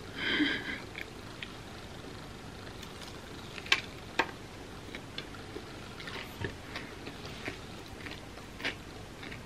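Biting into a large chocolate-coated candy bar of puffed rice, peanuts and peanut-butter caramel. There is a short noise right at the start. About four seconds in, two sharp cracks come as the hard chocolate shell breaks under the teeth, followed by light scattered crunching while chewing.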